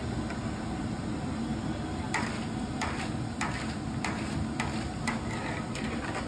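Potato slices deep-frying in a large wok of oil, a steady frying noise, while a metal perforated skimmer stirs and lifts them. From about two seconds in, the skimmer gives about seven sharp clicks against the wok, a little more than one a second.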